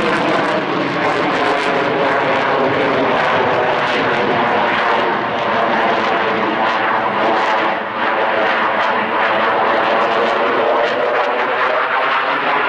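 Loud, steady jet noise from an F-16 Viper fighter manoeuvring overhead, dipping briefly about eight seconds in.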